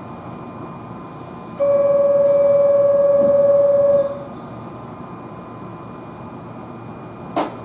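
A platform departure signal: one steady electronic tone that starts sharply about one and a half seconds in and holds for about two and a half seconds before stopping, telling that the train is about to leave. A single sharp click comes near the end.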